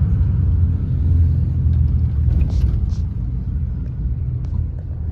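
Steady low rumble of a car driving along, the road and engine noise heard from inside the moving vehicle.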